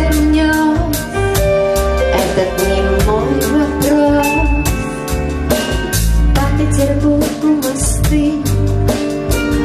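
Song with a steady drum beat, guitar and other instruments, a voice faintly present; an instrumental stretch between sung lines.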